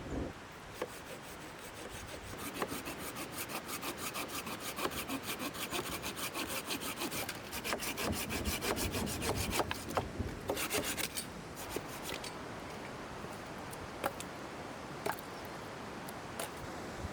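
Rapid rhythmic scraping or rasping strokes, several a second, that stop about two-thirds of the way through and leave only a few scattered clicks.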